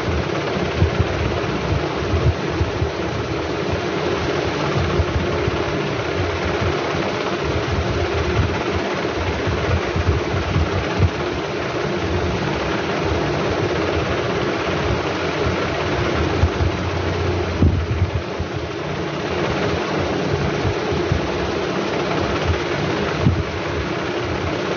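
Steady mechanical hum and low rumble with a few brief knocks.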